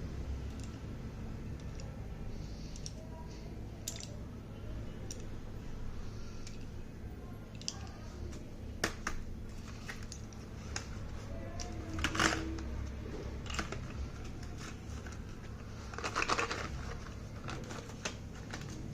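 Slate pencils and their parcel packaging being handled: scattered light clicks and taps, with louder crinkly rustles about twelve and sixteen seconds in.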